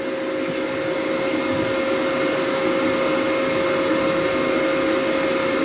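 Steady mechanical whir of a running machine, with a constant hum tone over a rushing noise, slowly growing a little louder.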